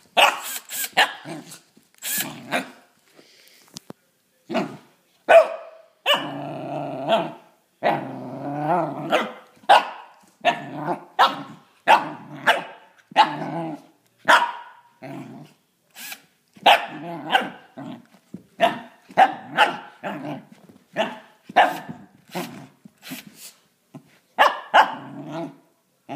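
Corgi puppy (Pembroke/Cardigan cross) barking over and over in short, sharp barks mixed with growls, with a couple of longer stretches about six and eight seconds in. He is barking at a cordless drill held out toward him, torn between attacking it and playing with it.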